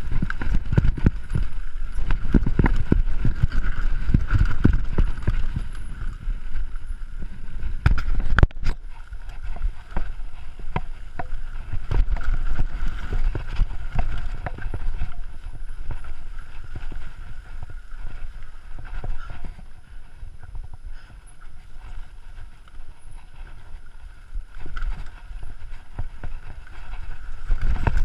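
Mountain bike rattling and clattering down a rough dirt downhill trail, with tyre rumble and a steady run of knocks from the bike over bumps. One hard knock comes about eight seconds in, and the clatter eases for a while past the middle before picking up again near the end.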